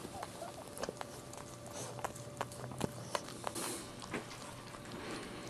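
Maltese mother dog licking her newborn puppy clean, with irregular wet tongue clicks and smacks.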